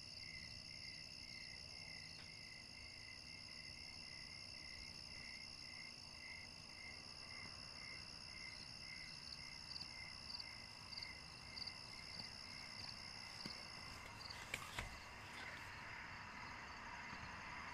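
Night insects chirping faintly: a steady high trill with a pulsed chirp about twice a second. The chirping stops about fourteen seconds in, and a few faint clicks follow.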